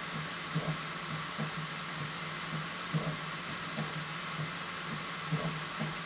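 Bambu Lab P1S 3D printer running a print: a steady fan hiss under a low motor hum that swells in short, irregular pulses as the print head moves.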